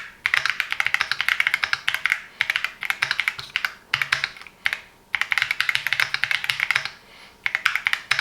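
Fast typing on a Keychron Q6 Max full-size metal mechanical keyboard with Gateron Jupiter Banana tactile switches: runs of rapid keystrokes broken by short pauses.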